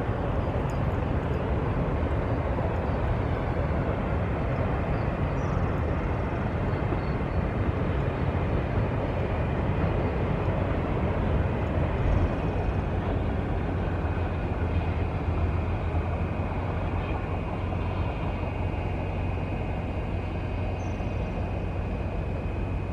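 A long train rolling through the canyon below, a steady low rumble that carries on unbroken. Faint steady high tones join it from about halfway through.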